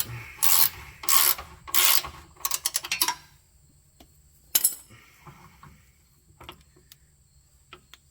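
Ratchet wrench snugging up a torque arm bolt: three long ratcheting strokes, then a quick run of short clicks, then a single sharp metallic knock about four and a half seconds in, followed by a few faint clicks.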